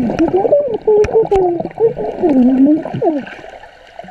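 A girl's voice underwater, muffled and wavering up and down in pitch, as she hums or calls out with bubbles leaving her mouth; it stops about three seconds in, leaving a faint watery hiss.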